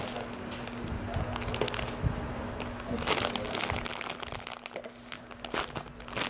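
Packaging crinkling and rustling in irregular bursts as a parcel is opened by hand.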